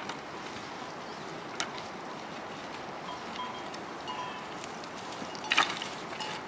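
Dry firewood sticks being picked up and knocking together: a sharp knock about a second and a half in and a louder clatter of wood near the end, over steady outdoor background noise. Faint, short ringing tones come and go in the middle.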